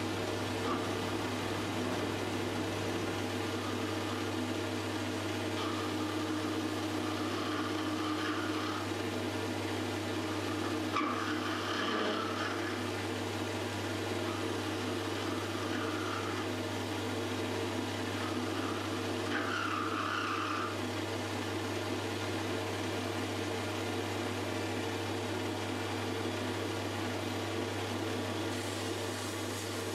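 Metal lathe running steadily with a low, even hum while turning a steel workpiece. A few short, higher-pitched sounds come and go around the middle.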